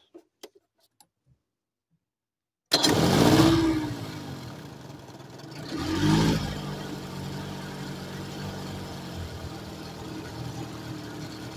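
Boat's outboard motor starting about three seconds in, its pitch rising and falling twice as it is revved, then running steadily.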